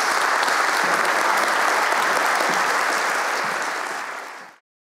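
A large audience applauding, a dense steady clapping that fades out and then cuts off to silence near the end.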